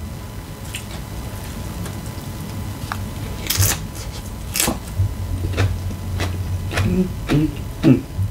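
Close-miked eating: fingers picking through a taco salad, then crunching and chewing a mouthful of chips. The two loudest crunches come about three and a half and four and a half seconds in, and softer chewing and mouth sounds follow near the end.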